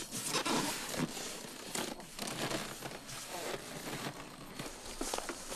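Plastic bags rustling and crinkling in irregular spurts, with a few light knocks, as a foam box of food is handled and lifted.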